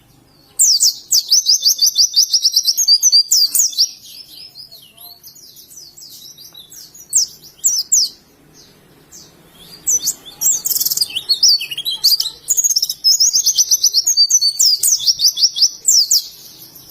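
Pleci (white-eye) singing its 'ngalas' song: long, fast, high-pitched trills of repeated notes in several bursts of a few seconds each, with short pauses between.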